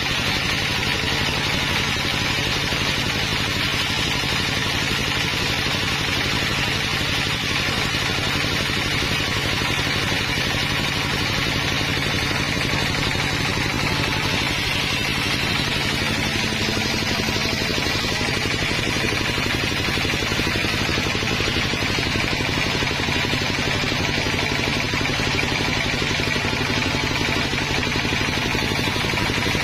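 Sawmill machinery running steadily: an even engine drone under a constant hiss, with no break or change.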